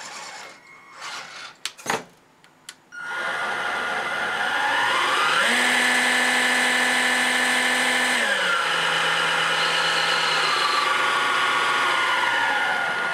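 Electric motor of a 3D-printed RC snow blower attachment spinning its auger and impeller under a speed controller. It starts with a whine about three seconds in, speeds up to a higher pitch, drops back to a lower speed a few seconds later and keeps running. A few sharp clicks come before it starts.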